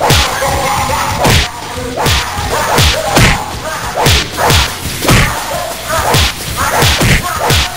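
Repeated whooshing swings and blows of a bat, about one every half to three-quarters of a second, each a sudden swish that falls in pitch.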